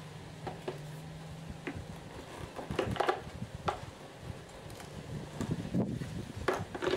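Scattered plastic knocks and clicks as a Bosch EasyAquatak 110 pressure washer's plastic housing, its wrapped hose and its power cord are handled and turned on a tile floor. There are clusters of knocks about three seconds in and again near the end.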